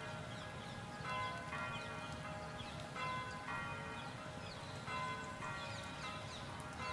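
Bells ringing a run of chiming notes, about two strikes a second, each note ringing on. Birds chirp over them and a low rumble runs underneath.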